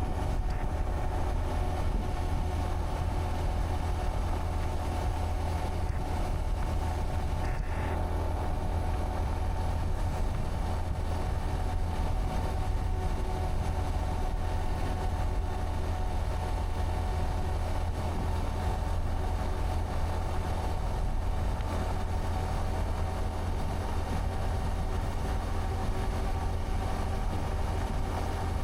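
Honda Monkey 125's single-cylinder four-stroke engine running at a steady cruising speed, with a low rumble of wind and road under it. The engine note holds its pitch throughout.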